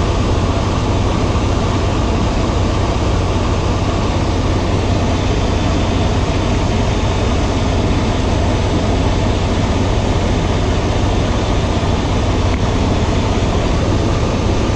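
Semi-truck diesel engine idling: a loud, steady low hum under an even noise that does not change.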